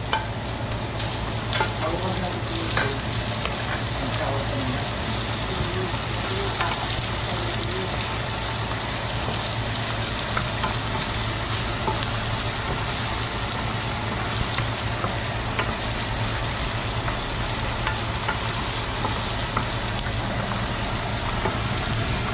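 Sliced onions and garlic sizzling steadily in a nonstick frying pan, stirred with a wooden spoon that gives small scrapes and taps now and then.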